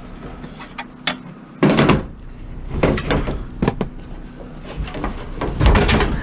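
A series of knocks and thumps as heavy stainless-steel scrap is handled and set down. The loudest comes about two seconds in, with more clanks near the end.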